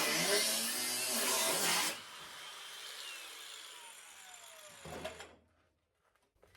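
Power cutting tool cutting into rusted sheet metal on the car's frame head. About two seconds in it comes off the work and spins down with a slowly falling whine. There is a short knock near five seconds, then near silence.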